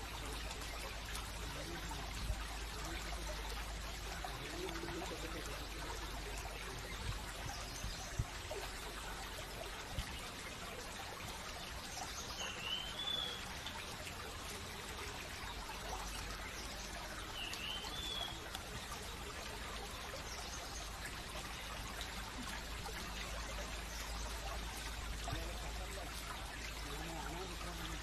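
A steady trickle of flowing stream water. A bird gives a short dipping call twice, about halfway through.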